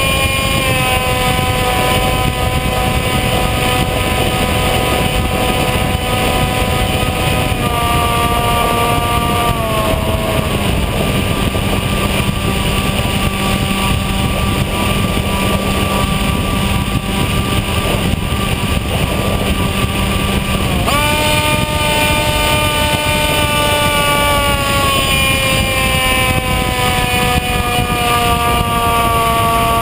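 Bixler RC plane's electric motor and pusher propeller whining, heard from the onboard camera over steady wind rush. The pitch eases down, drops as the throttle comes back about ten seconds in, and jumps up as the throttle opens again a little past twenty seconds before slowly falling.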